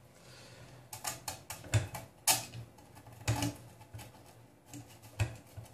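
Small metal bolts, nuts and springs clicking and tapping as they are handled and fitted at a corner of a 3D printer heatbed: a string of irregular sharp clicks, the loudest about two and three seconds in.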